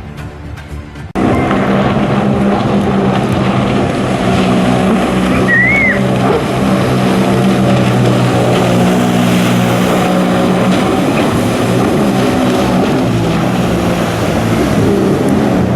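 About a second of music cuts off abruptly, and jet ski engines take over, running loudly and steadily. A short whistle rises and falls about six seconds in.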